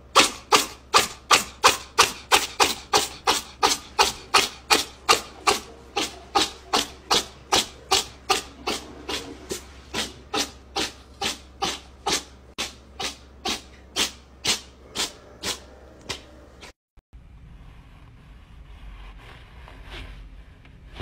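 Cat licking with its rough tongue: a long run of regular rasping strokes, about two and a half a second, slowing slightly, that cuts off about seventeen seconds in.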